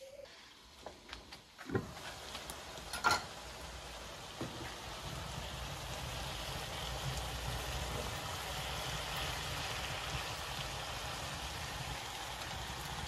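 Green beans and minced meat sizzling steadily in a frying pan, with a wooden spoon knocking against the pan a few times in the first seconds, loudest about three seconds in.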